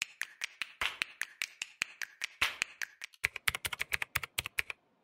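Rapid keyboard-typing clicks, about five a second, quickening after a short pause about three seconds in and stopping just before the end.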